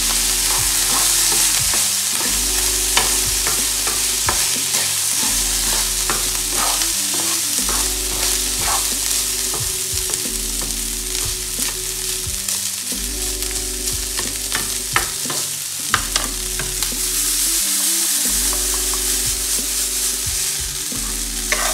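Fried rice with onion and carrot sizzling in oil in a non-stick frying pan over high heat, stirred with a metal spoon that clicks and scrapes against the pan many times. The pan is tossed by its handle near the end. A low hum cuts in and out underneath.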